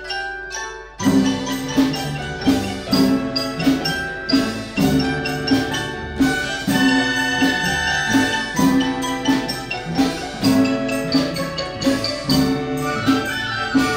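Chinese orchestra playing an instrumental piece: bowed erhu and other Chinese instruments over marimba, whose mallet strikes keep a steady beat of about two a second. After a brief lull, the full ensemble comes in about a second in.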